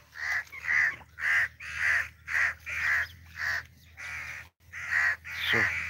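Birds giving short, harsh alarm calls over and over, about two a second: nesting birds crying out because they fear the dogs will take their young.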